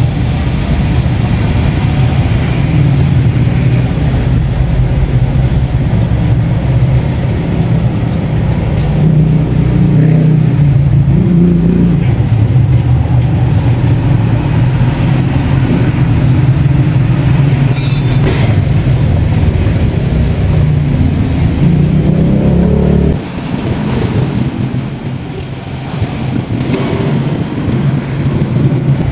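Motorcycle engine running steadily, with a couple of brief rises in pitch. Its level drops back about three quarters of the way through.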